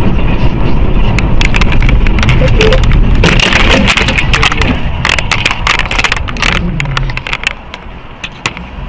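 Car crash recorded on a vehicle camera: loud rumble of the vehicle with a rapid run of sharp cracks and crunches over several seconds, dying down near the end.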